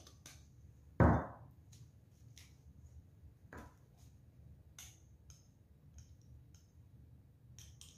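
Kitchen containers being handled over a glass mixing bowl while dry ingredients are added. There is a single loud knock about a second in, then scattered light clicks and taps as a small plastic spice jar is opened and shaken out.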